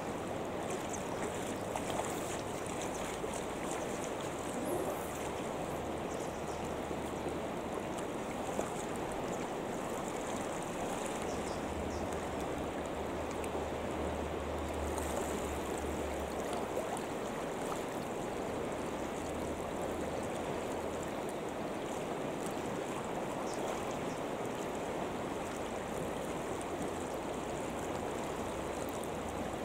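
Steady rushing of a wide, fast river's current.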